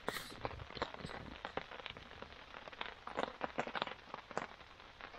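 Steady rain, with heavy drops tapping irregularly close by, a few to several a second.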